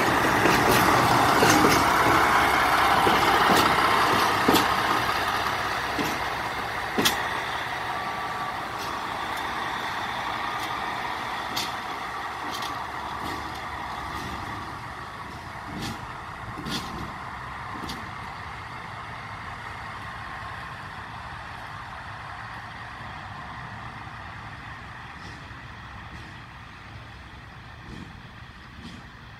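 PKP Cargo SM42 diesel shunting locomotive passing close by and moving away, its engine noise fading steadily. Scattered sharp clicks and knocks from the wheels on the track come through as it goes.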